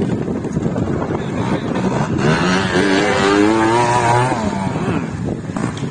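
Trials motorcycle engine running on a rough, irregular throttle, then revving hard for about two seconds, starting a couple of seconds in, as the bike climbs past close by.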